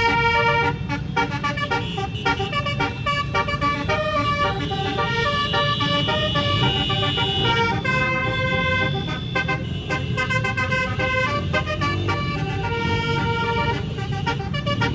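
Tour bus's 18-note basuri musical air horn playing a tune of short notes, with a longer held note about halfway through, over a low rumble.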